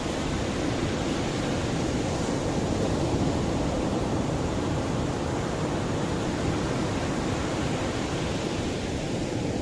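Mediterranean sea waves washing on a beach: a steady rush of surf that swells a little a few seconds in.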